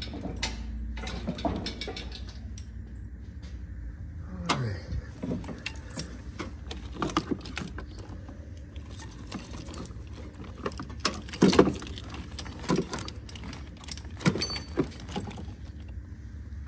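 Scattered metal clanks, knocks and jingling rattles as an engine and transmission are being lifted and shifted out of a truck's engine bay, with a falling creak about four and a half seconds in and the loudest knocks around eleven to twelve seconds in.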